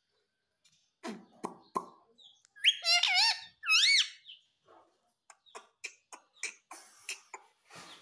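Indian ringneck parakeet making two loud rising-and-falling chirping calls about three seconds in, between short taps and clicks. There are three knocks before the calls and a quicker string of quieter taps after them, as its beak works at a mirror.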